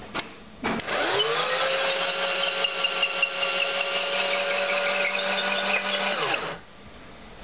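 A small DC motor, gripped in a drill-type chuck, spins up with a quickly rising whine and turns a threaded rod. It runs steadily for about five seconds, then winds down as it is switched off from the push-button controller. A short click comes just before it starts.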